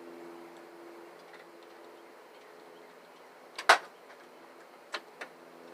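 One sharp metallic click a little past halfway, then two lighter clicks about a second later, from a screwdriver and loose parts as a scrapped dishwasher is taken apart. A steady low hum runs underneath.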